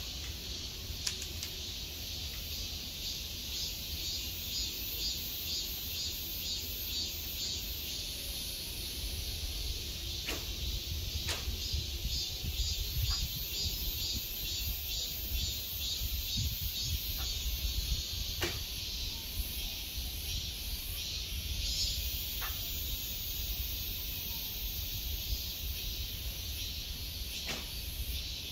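Loud summer cicada chorus, a high pulsing buzz, with wind rumbling on the microphone and a few sharp clicks.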